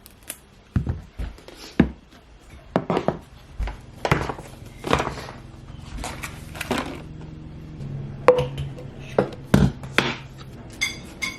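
Kitchen clatter of breakfast being made: irregular knocks of dishes and utensils, with a few ringing clinks of crockery or cutlery near the end. A low steady hum comes in about eight seconds in.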